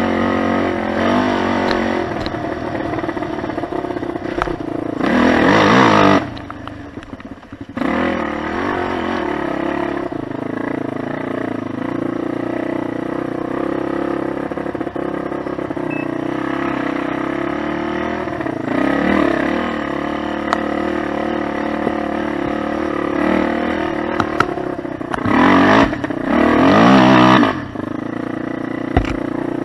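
Suzuki DR-Z400's single-cylinder four-stroke dirt bike engine running at low speed, opened up in two short bursts of throttle, about five seconds in and again a few seconds before the end. Right after the first burst the throttle is shut and it drops off sharply for about a second and a half.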